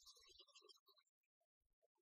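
Near silence, with only faint, broken fragments of sound, mostly in the first second.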